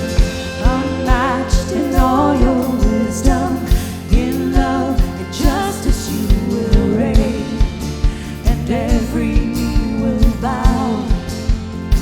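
Worship band playing a song: a singer's voice over a steady kick-drum beat with guitars.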